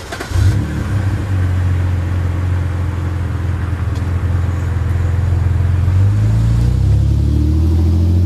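2006 BMW 330i's N52 straight-six, fitted with an Active Autoworke Signature exhaust in place of the muffler, warm-started: it catches with a sharp flare of revs about half a second in, then settles into a steady, deep idle. From about six seconds in the note shifts as the car begins to drive off.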